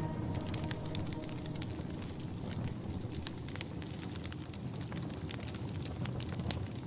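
Wood fire burning in a fireplace: a steady low hiss with many sharp, irregular crackles and pops from the burning logs.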